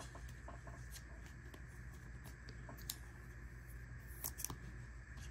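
A trading card being slid into a clear plastic sleeve: faint rustling of thin plastic with a few short, sharp crinkles, the loudest about three seconds in and a quick pair about four and a half seconds in. A steady low hum lies underneath.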